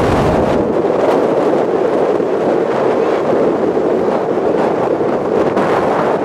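Steady wind noise buffeting the microphone.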